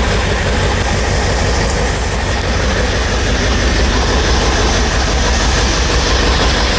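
1999 Ford F350's 7.3L Power Stroke V8 turbo-diesel running steadily with an even, rhythmic low clatter, just after a hard start following an injector-cup replacement that left oil in the cylinders.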